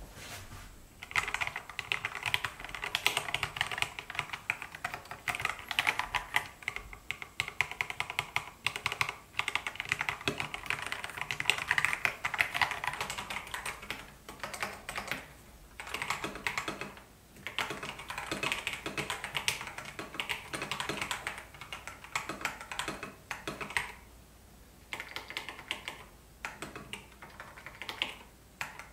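Typing on an Epomaker TH80 Pro mechanical keyboard: rapid, continuous keystroke clicks in runs, with a few short pauses.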